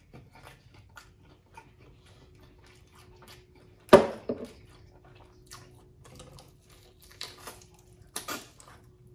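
Mouth sounds of a person eating fried chicken: small chewing and lip-smacking clicks, with one loud sharp bite about four seconds in and a few more bites near the end.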